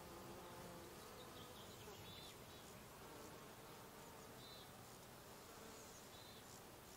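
Faint buzzing of flying insects, bees or flies, wavering in pitch as they move about the meadow flowers, with several short high chirps scattered through it.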